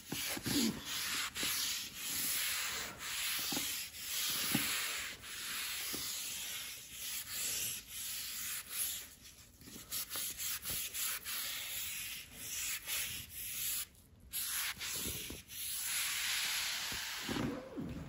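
Abrasive Bar Keepers Friend cleanser powder being scrubbed by hand across a quartz worktop, scouring out a stain. Quick back-and-forth rubbing strokes with short gaps, and a brief stop about fourteen seconds in.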